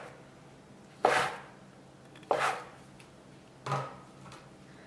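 A kitchen knife cutting down through a log of scallion dough and striking the wooden cutting board. There are three chops about a second and a quarter apart, each a sharp knock that fades quickly.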